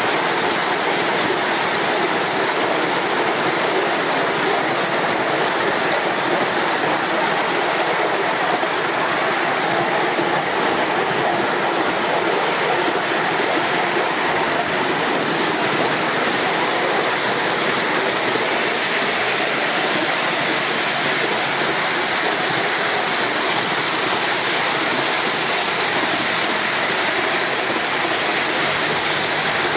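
Miniature steam train running on a raised track, heard from the riding car: a steady, unbroken rush of wheel and track noise.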